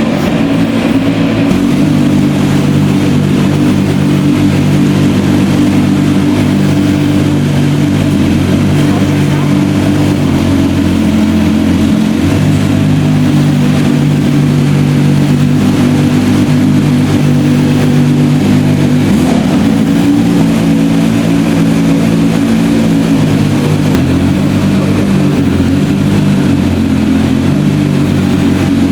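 Bugatti EB110's quad-turbocharged V12 running under way at fairly steady revs, its pitch shifting slightly a couple of times.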